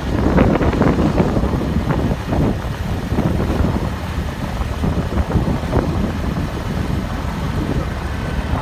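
Three-wheeled tempo (auto-rickshaw) driving along a road: a steady low rumble of motor and tyres, with irregular knocks and rattles and wind buffeting the microphone.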